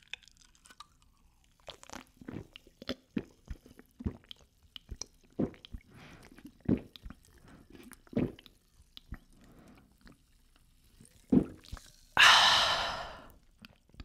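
A person gulping an energy drink straight from the can: a run of separate, irregularly spaced swallows with small wet mouth clicks in between. After about twelve seconds comes a loud, breathy exhale after drinking, the loudest sound here.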